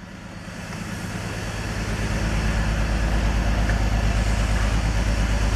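A BMW E46's engine idling with a regular lumpy pulse, a misfire from a faulty ignition coil pack that is still present after the coil packs were swapped between cylinders. It grows louder over the first two seconds, then holds steady.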